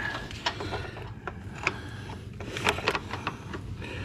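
Metal hand tools clicking and clinking as a wrench and socket are worked onto a bolt in a cramped engine bay: a few sharp, irregular clicks, with a quick cluster a little before three seconds in.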